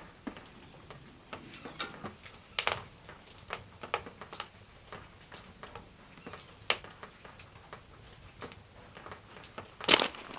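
Irregular light clicks and taps, scattered and uneven rather than a steady rhythm, with a cluster of louder sharp cracks near the end.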